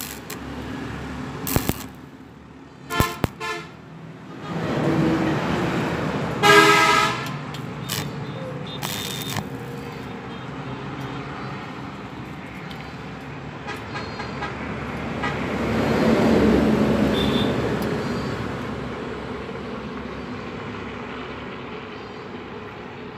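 Road traffic in the background with a vehicle horn: two short toots about three seconds in and a louder toot about six and a half seconds in. Later a vehicle passes, swelling and fading.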